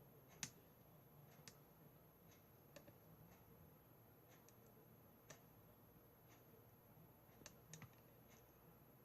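Near silence broken by a few faint, sharp clicks at irregular moments, the loudest about half a second in and a close pair near the end.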